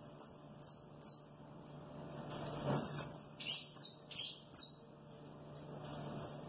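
Saffron finch giving sharp chirps: short, very high notes that each drop quickly in pitch, in two quick runs of several notes with a pause between them and one more near the end.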